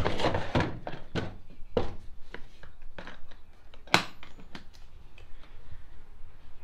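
Plastic tool box being handled and shifted into place: a run of knocks and scrapes, then a single sharp snap about four seconds in, as of a latch.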